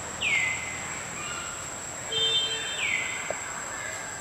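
Forest ambience: a bird gives a short whistle that slides down in pitch, twice about two and a half seconds apart, with a few brief chirps in between, over a steady high-pitched whine.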